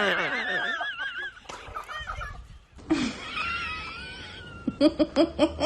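High, wavering cries, then a quick run of laughter near the end.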